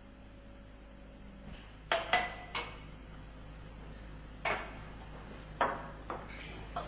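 Glass bottles and lab glassware clinking as they are handled on a laboratory bench: three sharp clinks about two seconds in, the first with a short ring, then single clinks at intervals.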